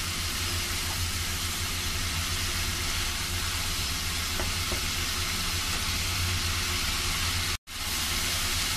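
Grated white radish sizzling and hissing as it is stir-fried in a nonstick wok, over a steady low hum. The sound cuts out for a moment about seven and a half seconds in.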